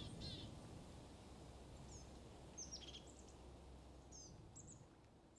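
Faint outdoor ambience with several short, high bird chirps scattered a second or so apart, slowly fading.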